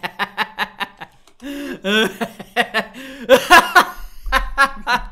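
Men laughing: short quick bursts at about five a second, then longer laughs whose pitch rises and falls.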